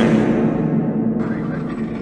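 Tail of a loud crash sound: a noisy rumble that fades slowly, its hiss cutting out about a second in.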